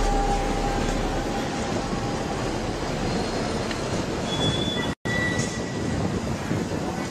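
A train running, with brief thin squeals from its wheels, over the noise of a busy station. The sound cuts out for an instant about five seconds in.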